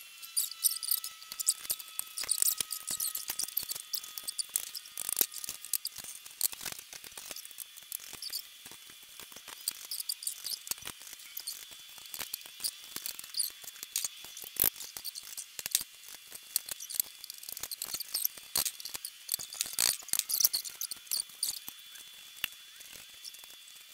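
Rapid, irregular clicking and rattling of small metal parts, such as scooter bolts, clamp and tools being handled during assembly of a stunt scooter.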